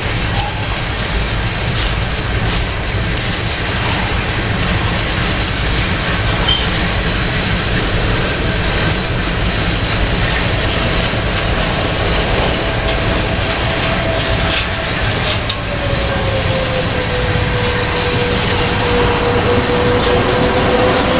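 Freight train of covered hopper cars rolling slowly past, with a steady rumble, occasional faint clicks, and wind rumbling on the microphone. From about halfway a faint whine comes in and dips slightly in pitch.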